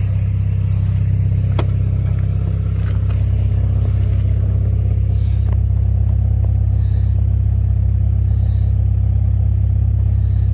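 K24 2.4-litre inline-four in a Honda Accord idling steadily after being started on a new starter. A sharp click about a second and a half in, and a faint high beep repeating about every second and a half from about halfway through.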